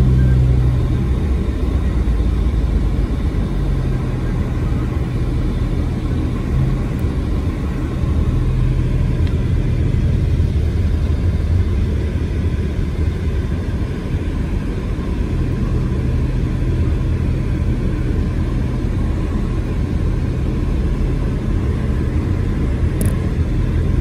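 Car driving slowly on a wet road, heard from inside the cabin: a steady low rumble of engine and tyres, with a low engine hum that fades and returns a few times.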